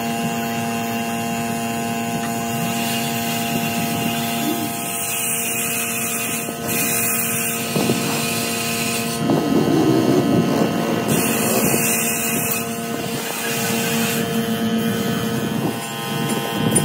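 A motor running steadily with a constant hum, likely the compressor feeding the paint line. Over it, a compressed-air paint spray gun hisses in two bursts as its trigger is pulled.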